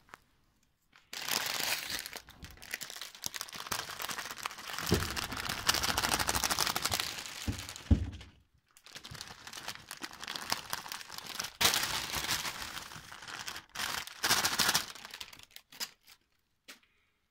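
Dry straw and branches rustling and crackling as they are brushed and handled, in two long stretches, with a few dull thumps about five and eight seconds in.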